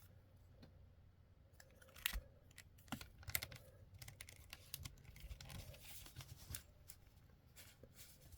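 Faint handling noise: scattered small clicks and short rustles as plastic action figures are picked up and moved about.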